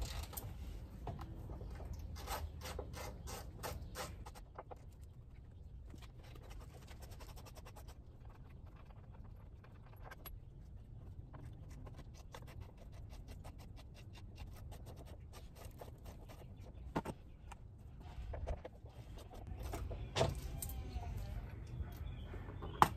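Ratchet wrench clicking in quick runs as the front control arm bolts are worked loose, then scattered metal clinks of tools and hardware, with one sharp clink near the end. A low rumble runs underneath.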